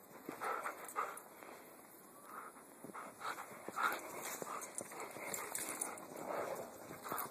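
A dog whining and panting in short, irregular bursts, with scattered crunches and rustles in the snow.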